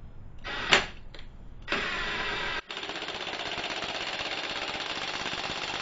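Ryobi P263 18-volt 3/8-inch cordless impact wrench on its lowest speed setting, with a brief whirr about half a second in. Then from under two seconds in it hammers a lug nut in a rapid, steady rattle, broken once for a moment. The run is tightening the nut for a torque test.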